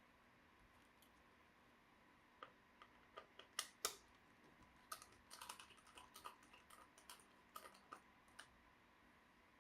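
A quick run of small, sharp plastic clicks and taps starting about two seconds in, with two louder ones near the middle, from a laptop's case and parts being handled during disassembly.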